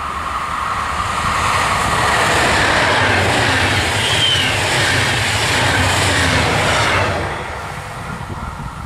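Electric locomotive-hauled passenger train passing at speed: the rushing rumble of its wheels on the rails builds as the locomotive and coaches go by, with a brief high squeal about four seconds in, and falls away sharply about seven seconds in as the last coach passes.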